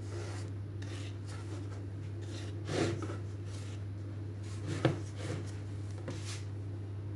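A blade scoring risen bread dough: a run of short, soft scraping strokes as each loaf is slashed, with two louder knocks about three and five seconds in. A steady low hum runs underneath.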